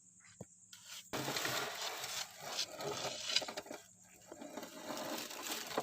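Scraping and irregular small knocks of hand work laying concrete paving blocks, starting about a second in and carrying on with brief lulls.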